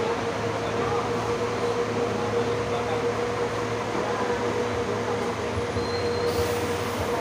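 Steady drone of idling diesel coaches, a low rumble with a constant hum above it. A faint hiss comes in near the end.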